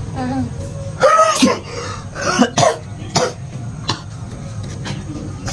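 A person coughing in several short bursts: a longer one about a second in, then two or three shorter ones over the next two seconds.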